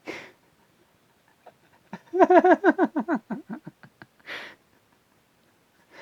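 A person laughing: a sharp breath, then about two seconds of quick pitched "ha" pulses that fall in pitch and fade, followed by a breath out.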